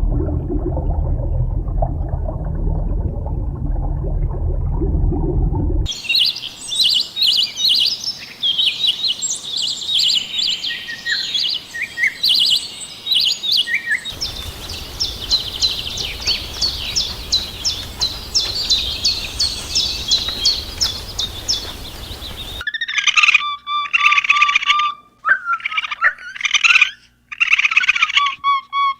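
Small birds calling in a series of edited clips. First scattered high chirps, then a fast, even run of chirps, then whistled calls broken by short pauses. The first few seconds instead hold a louder, low, dense sound that cuts off sharply.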